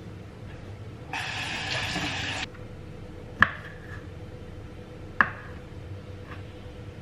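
Kitchen sounds: a brief rush of running or pouring water that starts and stops abruptly, then two sharp, ringing clinks of glass or dishes set down about two seconds apart, over a steady low hum.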